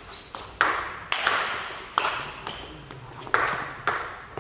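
Table tennis rally: a celluloid-type ball clicking sharply off rubber-faced rackets and bouncing on the table, a hit every half second to a second, each click trailing a short echo from the hall.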